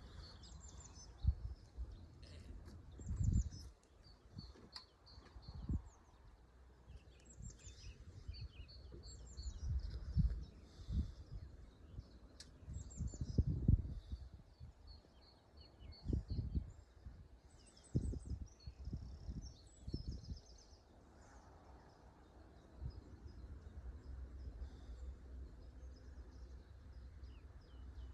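Small birds chirping and singing, with intermittent low rumbles.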